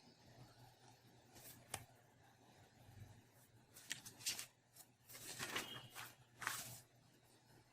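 Quiet desk-work sounds: a sharp tap about two seconds in, then a handful of short rustles and clicks in the second half, irregular rather than a steady typing rhythm.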